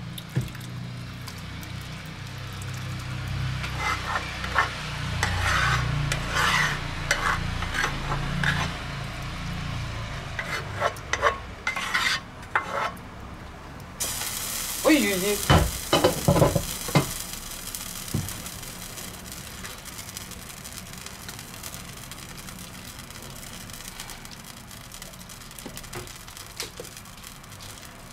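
Sauce being ladled and poured from a pot over meat skewers in a metal baking tray: a ladle and pot knocking and scraping against metal, with wet slopping. About halfway a steady hiss sets in abruptly, followed by several sharp knocks, then a wooden spatula is worked through the sauce.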